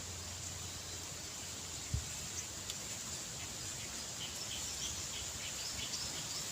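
Outdoor rural ambience: a steady high-pitched insect drone with scattered faint short chirps, and one soft low thump about two seconds in.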